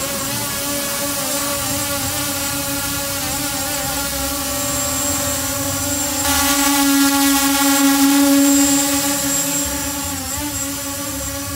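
Multilaser Falcon 4K GPS quadcopter drone in flight, its four propellers giving a steady, many-pitched buzzing whine. The sound grows louder about six seconds in as the drone comes close, then eases off near the end.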